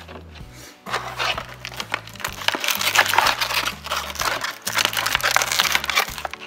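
Thin clear plastic bag crinkling loudly as it is handled and opened close to the microphone, starting about a second in and stopping just before the end, over a steady background music track.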